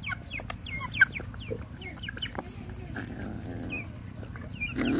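Chickens clucking with short, high, falling chirps, over the clicks and scrapes of puppies eating rice from metal pans, with one sharp knock about a second in.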